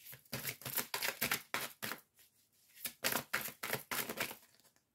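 A deck of oracle cards being shuffled and handled by hand: two runs of quick, crisp card clicks with a short pause between them.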